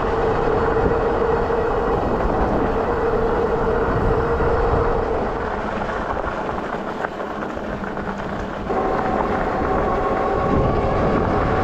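Electric bike in motion: the motor's steady whine over a low rush of wind on the microphone and tyres rolling on a dirt path. The whine fades as the bike slows, then comes back at a higher pitch about three-quarters of the way through as it speeds up again.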